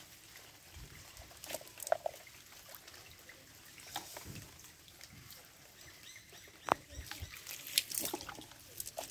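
Water trickling and splashing in scattered short bursts, typical of a cast net being worked in shallow water, with a couple of sharper splashes in the second half.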